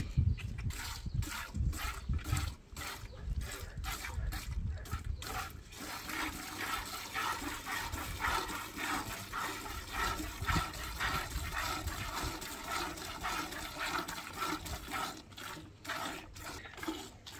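Milk squirting into a pail as a cow is milked by hand, in short rhythmic spurts about two a second. Midway the spurts run together into a steadier hiss, and separate spurts return near the end.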